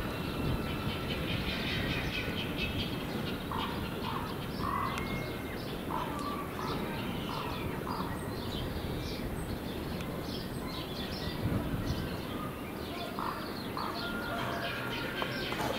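Birds chirping, with many short calls scattered throughout, over a steady low background rumble.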